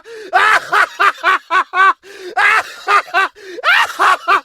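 A man's evil laugh: quick, rhythmic "ha-ha-ha" pulses, about four a second, in three runs broken by short pauses.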